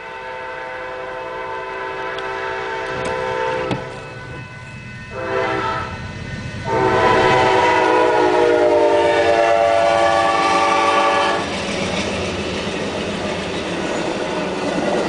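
Amtrak passenger train's locomotive horn sounding a long blast, a short one, then a loud long blast of about five seconds: the end of the long-long-short-long grade-crossing signal. After the horn stops, the train's bilevel cars pass with a steady noise of wheels on the rails.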